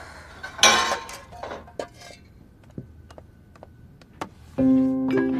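Kitchen clatter: metal utensils and steel pots clinking and knocking, with one loud clattering burst about half a second in. Music starts near the end and is louder than the clatter.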